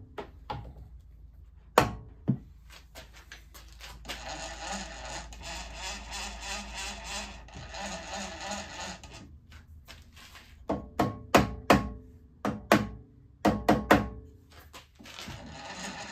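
Soft-face mallet knocking on a mill power feed's mounting bracket: a couple of sharp knocks about two seconds in and a quick series of about nine between ten and fourteen seconds. In between, and again near the end, the horizontal power feed runs with a steady gear noise from its output gear meshing with the spur gear it drives; the knocks move the bracket to set that mesh and cut the grinding.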